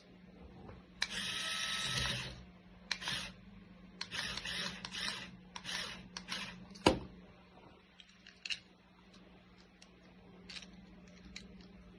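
Small electric motors of a remote-controlled Lego Technic crane whirring in several short bursts, with a sharp click about seven seconds in, over a steady low hum.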